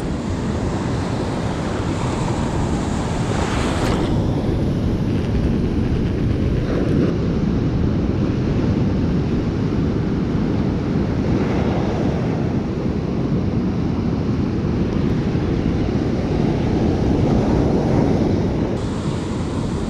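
Ocean surf breaking on rocks in a steady rush, swelling a few times as waves come in, with wind buffeting the microphone.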